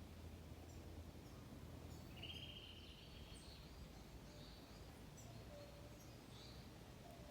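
Faint forest ambience: a low steady rumble of breeze with scattered bird calls, a buzzy call about two seconds in followed by several short high chirps.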